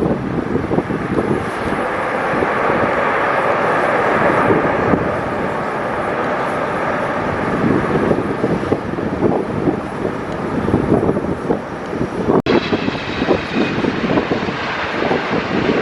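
Jet airliner engines running, heard through strong gusty wind buffeting the microphone. About twelve seconds in the sound breaks off for an instant and another jet follows, with a steady high engine whine over the noise.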